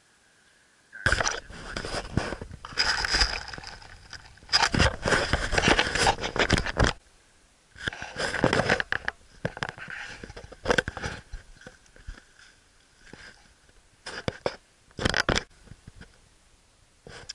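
Footsteps crunching and scuffing through dry leaf litter on the forest floor, with scraping from a handheld camera being picked up and carried. The noise comes in irregular bursts with short pauses, starting about a second in.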